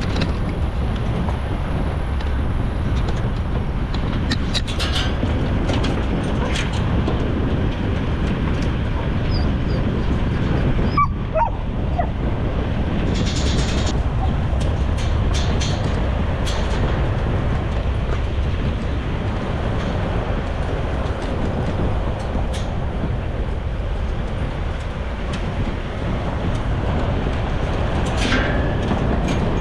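Pig-hunting dogs whining and yipping over the steady low rumble of a moving ute, with scattered short clicks and knocks.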